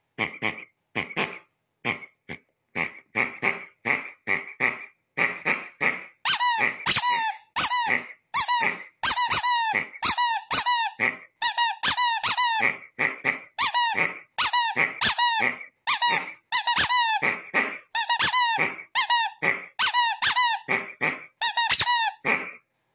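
A rubber duck toy squeaked over and over in short separate squeaks, about one or two a second. The squeaks are softer for the first few seconds, then louder and shriller from about six seconds in.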